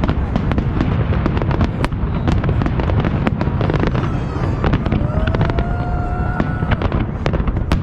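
Fireworks display: a rapid barrage of bangs and crackles over a constant low rumble. A whistling tone rises slightly from about five seconds in and stops about a second and a half later.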